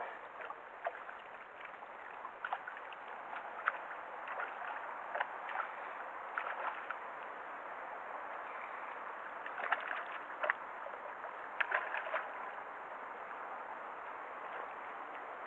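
Water sloshing and gurgling, with many small splashes and ticks scattered through it.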